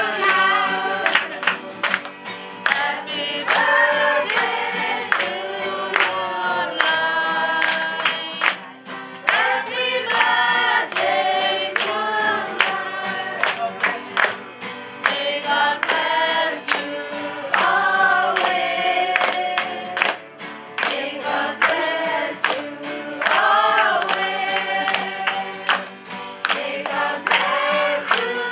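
A group of adults and children singing a song together, with hand clapping along.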